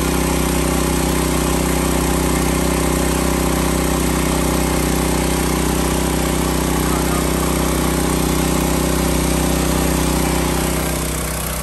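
The 196cc air-cooled single-cylinder four-stroke OHV engine of a KCM KC450G plunger pump set, running steadily and driving its belt-driven plunger pump. The loudness dips slightly near the end.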